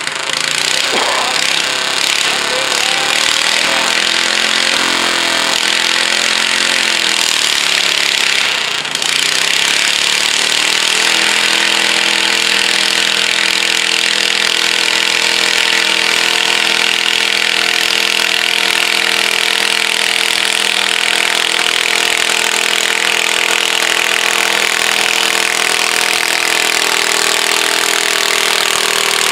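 Pulling garden tractor's engine running loud, revving up and down at first, then from about eleven seconds in held at a steady high pitch under full load as it drags the weight-transfer sled down the track.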